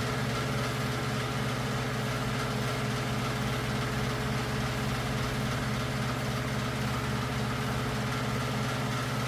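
Steady low mechanical hum of a running motor, unchanging throughout, with a few fixed higher tones above it.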